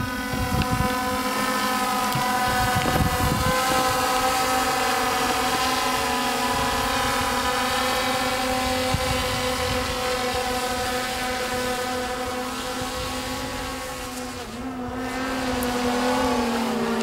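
FireFLY6 VTOL drone's six electric motors and propellers, a steady pitched buzz during its autonomous vertical takeoff and climb in hover mode. Wind buffets the microphone in the first few seconds, and the buzz eases off briefly about two-thirds of the way through before picking up again.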